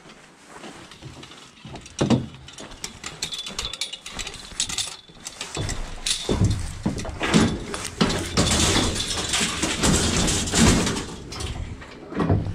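Scrap metal from a barbecue (steel frame, round grill grate and chains) clanking and rattling as it is handled and loaded into the back of a van. A sharp knock comes about two seconds in, and the clatter is densest and loudest in the second half.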